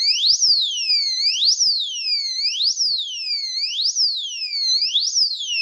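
AllExtreme EXDAL1B disc brake lock's built-in anti-theft alarm sounding a loud, very high siren. Its pitch slides down and then quickly back up about once every second and a bit. This is the full alarm the lock gives when it is touched a second time, after a first-touch warning.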